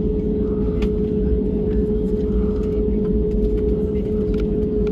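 Steady cabin noise of an Airbus A320-family jet taxiing, its engines at idle: an even drone with a constant mid-pitched hum and a low rumble, with a few faint clicks and rattles.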